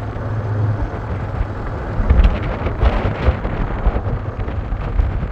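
Storm wind buffeting the microphone: a loud, uneven low rumble with a rushing hiss over it.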